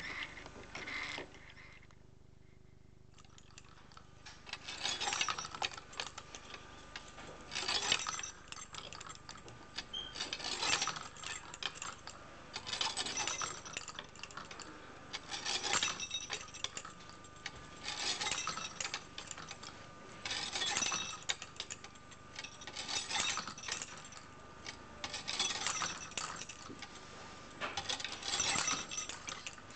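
Bouts of light metallic clinking and jingling that come back about every two and a half seconds: the small hanging metal parts of a hand-built kinetic sculpture knocking together with each turn of its mechanism.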